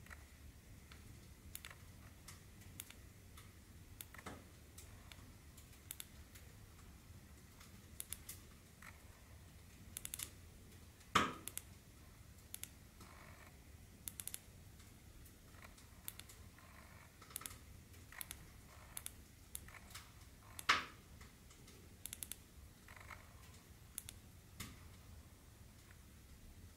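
Sofirn SP40 flashlight's side switch clicked over and over at an uneven pace, cycling the light through its brightness modes and off, with two louder knocks from handling the light.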